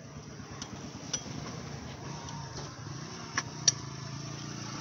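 Metal clinks of a T-handle socket wrench working loose the engine mounting nuts on a generator's steel frame: a few sharp clicks, the loudest pair about three and a half seconds in, over a low steady hum.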